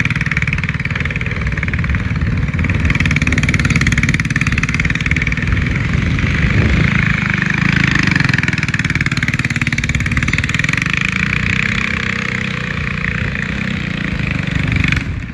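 Small go-kart engine running steadily as the kart is driven.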